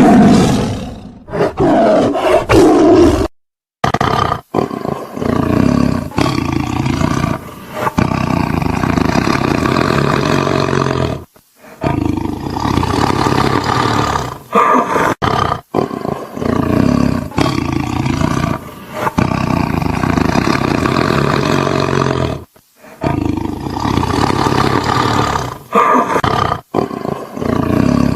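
Tiger roaring over and over: long, loud, rough calls with short pauses between them. It drops abruptly to silence three times where separate recordings are spliced together.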